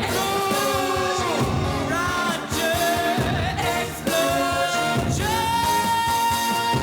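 A sung TV theme song with band backing. From about five seconds in, a long high note is held.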